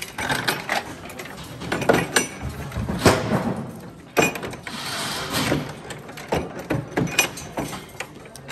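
Irregular clicks, knocks and mechanical rattling, like gear being handled, with people talking in the background.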